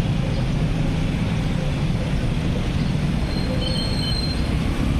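Steady low rumble of road traffic, with motorcycles crossing the railway tracks. A brief high, thin tone sounds about three and a half seconds in.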